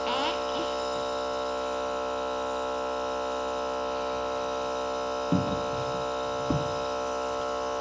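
Nebulizer's electric compressor motor running with a steady hum during a child's inhalation treatment. Two brief short sounds cut in about five and six and a half seconds in.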